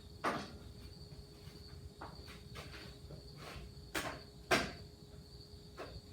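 A few light knocks and clicks from chainsaw parts being handled, the loudest about four and a half seconds in, over a faint steady high-pitched tone.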